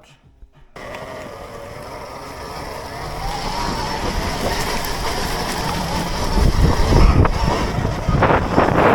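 Raw riding sound from a Surron electric dirt bike: wind on the microphone and tyres churning over rough, muddy ground, with a faint whine running through it. It cuts in under a second in, builds steadily louder as speed picks up, and turns into a heavy, rough rumble over the last few seconds.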